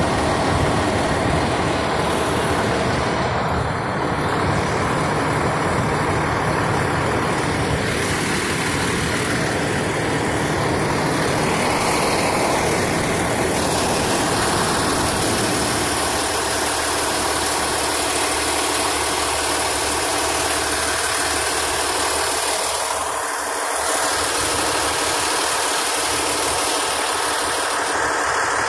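Fire engine idling close by: a loud, steady engine drone with no siren.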